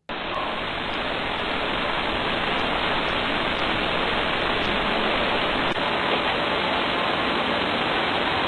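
Steady, even rushing hiss on a nursery baby-monitor camera's audio, like rain or running water, starting abruptly. There is one faint click about six seconds in.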